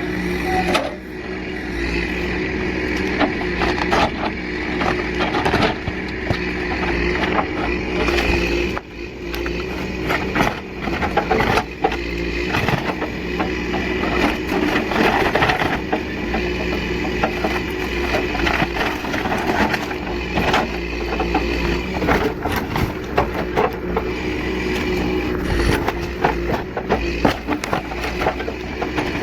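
A heavy machine's engine running steadily while a cabin wall is knocked down, with many cracks, knocks and crashes of breaking wood and debris.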